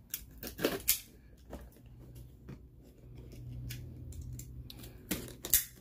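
Packaging tape on a cardboard box being slit with a small hand cutter: scraping cuts broken by sharp snaps, loudest just under a second in and again near the end.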